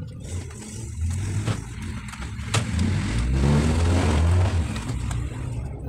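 A motor vehicle's engine that builds up over a few seconds, is loudest around four seconds in, then fades, with a few sharp clicks from a circuit board being handled.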